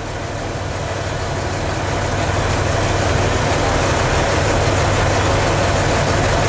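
Fishing boat's engine running with a steady low hum, growing louder over the first couple of seconds and then holding steady.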